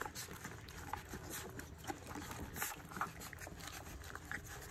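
Goldendoodle puppies eating soaked puppy-food mush from a shallow dish: an irregular patter of small wet smacks, licks and chewing clicks.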